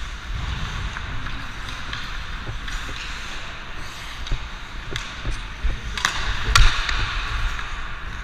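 Ice skate blades scraping and carving on rink ice, with a low rumble, and two sharp clacks about six seconds in, the second the loudest, typical of hockey sticks striking the puck or the ice.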